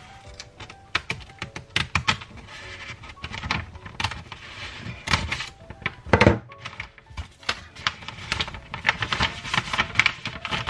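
Wrapping paper crinkling and rustling as it is handled and folded around a gift box, in irregular sharp crackles, with one loud thump about six seconds in.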